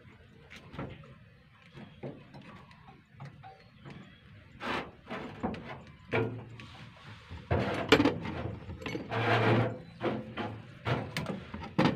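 Scattered knocks, clicks and rustling of hands and tools working on vehicle wiring while a terminal is fitted to a wire, with a busier run of handling noise and thuds near the end.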